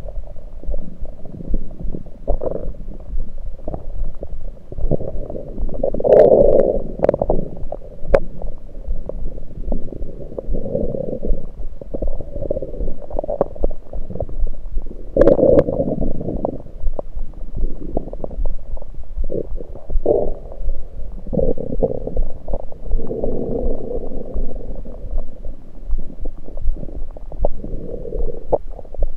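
Stomach gurgles picked up by an electronic stethoscope held on the belly: an irregular run of liquid gurgles and rumbles, loudest about six and fifteen seconds in, with a few sharp clicks. The owner puts the gurgling down to liquid and air moving in the stomach rather than digestion.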